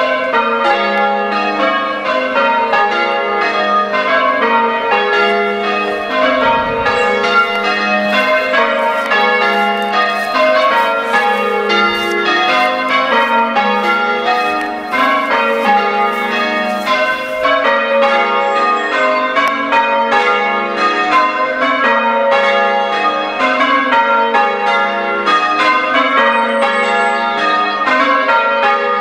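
A ring of six church bells being rung in changes: a continuous, evenly paced run of overlapping bell strikes, each ringing on into the next.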